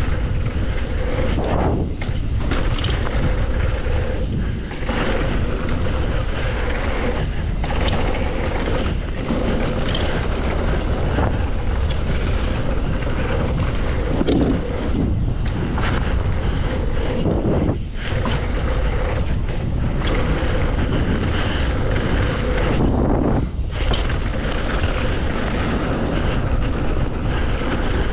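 Wind rushing over the microphone of a mountain bike descending a dirt trail, with the tyres running over the ground, in a continuous loud rush with brief dips.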